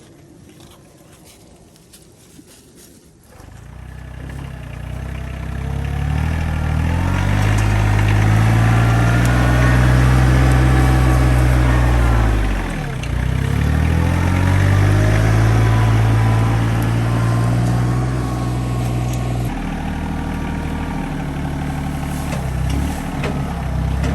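Engine starting up about three seconds in and running steadily, its speed dropping sharply and picking back up about halfway through.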